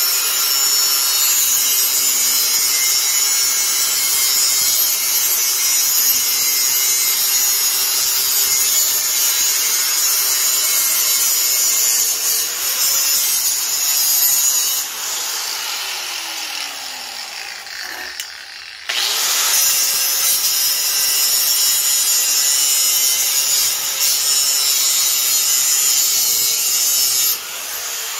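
Angle grinder with a cutoff wheel cutting through shopping-cart metal tubing: a harsh, loud grinding hiss. About halfway through the grinder is let off and winds down to a stop with a falling whine, then starts up again suddenly and cuts for several more seconds before winding down again near the end.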